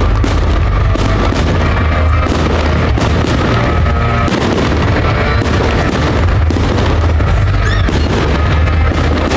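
Fireworks display going off continuously: a constant deep rumble of booms with many sharp crackling bursts over it, and music playing alongside.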